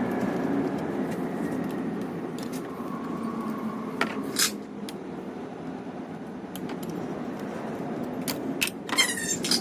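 Metal hand tools and small car parts clinking: a couple of sharp clicks about four seconds in, then several more and a short rattle near the end, over a steady low hum.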